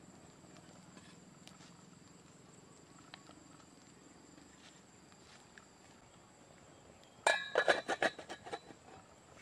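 A stainless steel pot lid set down on a cooking pot about seven seconds in: a quick cluster of metal clanks that ring.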